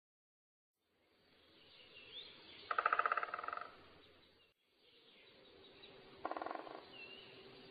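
Great spotted woodpecker drumming: two short, rapid rolls of knocks a few seconds apart, the second shorter, with faint chirps of small birds behind.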